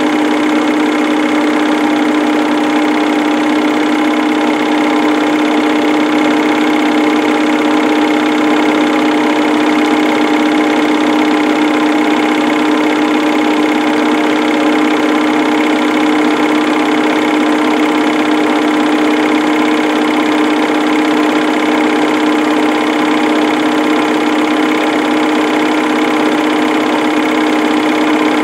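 Film projector running: a steady mechanical whir with a strong, unchanging hum.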